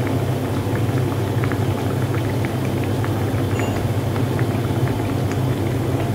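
Semolina-and-flour dough discs deep-frying in hot oil in a pan: steady sizzling and bubbling with many small scattered crackles, over a steady low hum.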